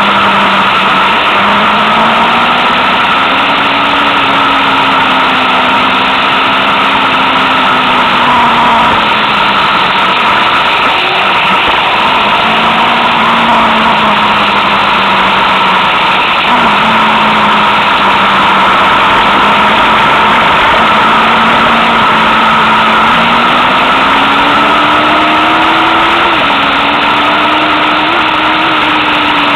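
Motorcycle engine pulling along a winding road, its note rising and falling with the throttle and dropping suddenly once near the end, under a heavy rush of wind over the microphone.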